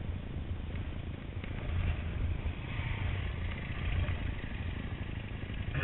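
Off-road motorcycle engines: one bike idling steadily close by while a second trail bike rides up the track alongside, its engine growing louder through the middle.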